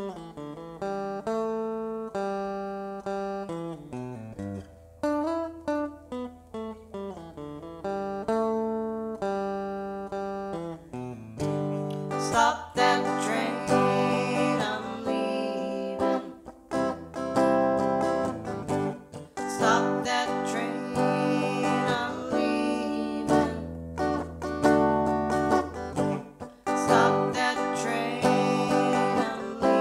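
Recorded music: a plucked-string intro of single notes over a low held bass, then a fuller, louder band arrangement coming in about eleven seconds in.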